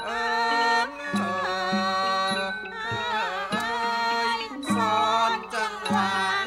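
Thai classical piphat ensemble music accompanying a khon dance, with a wavering melody line over lower held notes and occasional struck accents.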